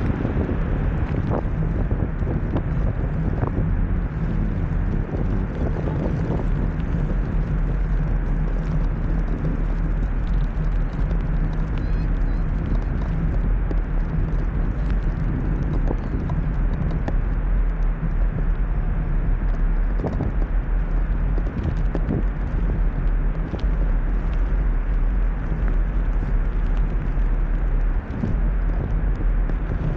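Steady rumble of a blokart under way on tarmac: its small tyres rolling over the rough surface and wind on the microphone, with scattered knocks and rattles from the kart.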